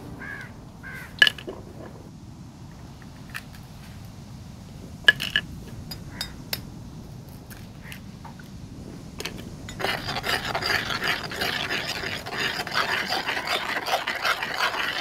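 Eggs cracked into a clay bowl of cornflour: a few sharp taps of a knife against the shells. For the last five seconds there is a dense, busy scraping crackle, which stops abruptly.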